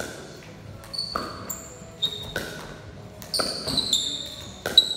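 Pickleball rally: a hollow plastic ball being hit back and forth with paddles and bouncing on a concrete floor, making an irregular run of sharp pops, some followed by a brief high ring.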